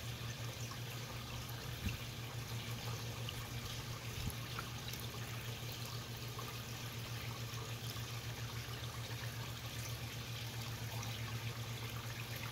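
Pond water trickling and lapping around a crowd of koi, with faint scattered pops and smacks as the fish mouth at the surface, over a steady low hum.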